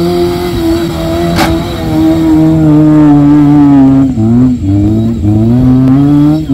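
Maruti Suzuki Gypsy's engine revving hard as it spins donuts in loose sand. The engine note holds high, dips and wavers about four seconds in, then climbs back up.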